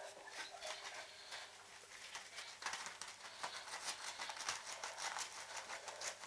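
A dog rummaging with its nose through a pile of torn glossy catalogue pages: paper rustling and crinkling. It grows busier and louder a little under halfway through.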